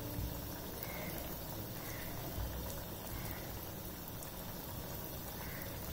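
A pumpkin fritter sizzling and bubbling steadily as it deep-fries in hot oil in a kadai over a low gas flame.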